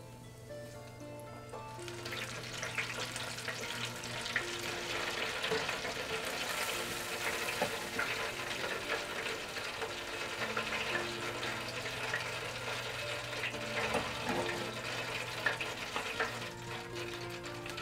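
Chicken pieces deep-frying in the hot oil of an electric deep fryer: a dense crackling sizzle that swells about two seconds in, after the battered chicken goes into the oil, and eases slightly near the end. Background music with sustained tones plays under it.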